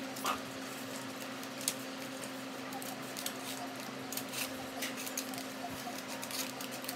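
Scissors cutting through Christmas wrapping paper: a scatter of short snips and paper crinkles, sparse at first and busier from about halfway, over a steady low hum.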